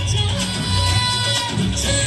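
Recorded dance song with singing and a strong, regular bass beat, played loud over a stage sound system.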